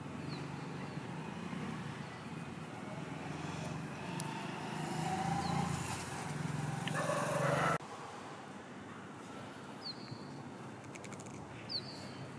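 Outdoor ambience with a low steady rumble like nearby road traffic, swelling in the middle and cutting off suddenly about halfway through, with a few short high chirps.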